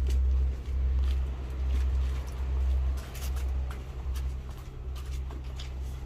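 Wind buffeting the microphone: a low rumble that swells and dips in gusts, with a few faint light clicks.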